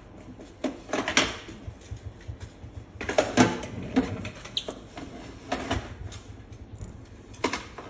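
Steel pedicure tools clicking and clinking in short separate bursts as a toenail is trimmed, with one brief high metallic ring about halfway through.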